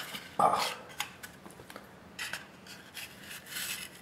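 Plastic filter housing of a small submersible aquarium filter pump being handled and opened: a sharp plastic click about half a second in, then several short scrapes as plastic and the foam filter sponge rub together.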